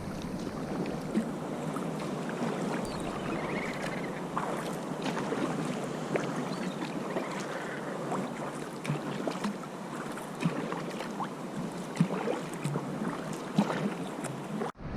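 Water splashing and lapping around a sea kayak on the move, with many small irregular splashes. The sound drops out briefly near the end.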